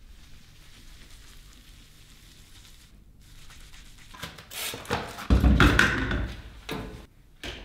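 Cleaning noises in a small tiled bathroom: a cloth rubbing and scrubbing across tiles, loudest between about five and seven seconds in, with a sharp knock near the end. A faint low hum comes before it.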